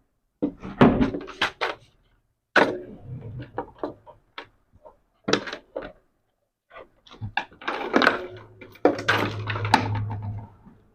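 Clicks, knocks and light clatter from handling small electronic units and cables, coming in clusters with short silent gaps. A low steady hum joins about eight seconds in.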